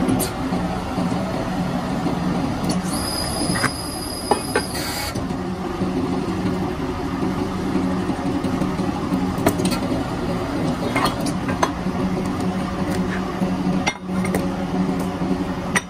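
Hydraulic press with its pump motor running in a steady drone, with several sharp metal clinks as the steel mould is handled. About three seconds in, a high-pitched whine sounds for roughly two seconds.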